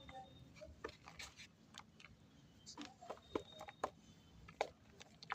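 Clay being crushed, giving a series of irregular sharp crackles and snaps, thickest around the middle of the stretch.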